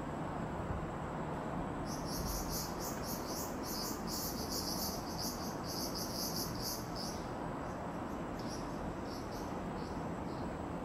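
An insect chirping in rapid high-pitched pulses, about four a second. It starts about two seconds in, thins out to scattered chirps after about seven seconds, and sounds over a steady low background rumble.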